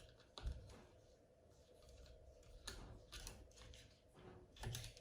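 Faint scattered clicks and light knocks of a small cleaning mop being worked and turned inside a rifle's receiver, a few seconds apart, over a low hum.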